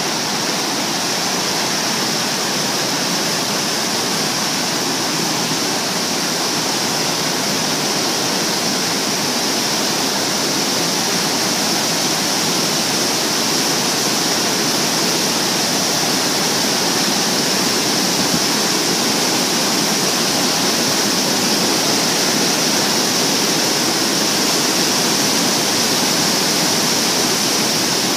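River water pouring over a low dam or weir into churning white water below: a loud, steady rushing roar that holds even throughout.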